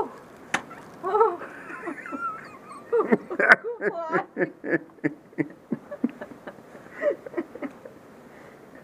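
A dog whining with sliding calls, then a run of short yips and barks, with one sharp knock about three and a half seconds in.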